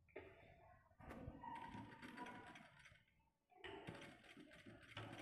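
Sewing machine stitching through cloth in two short quiet runs, the first from about a second in, the second starting after a brief pause past the halfway point.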